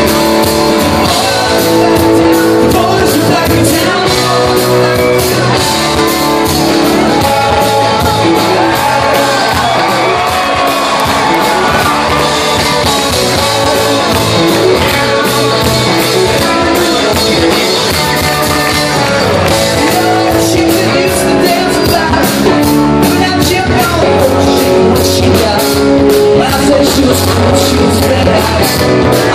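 A live rock band playing a song, with electric guitars, keyboards, drums and a lead singer, loud and steady throughout. It is heard from among the crowd, with the echo of a large hall.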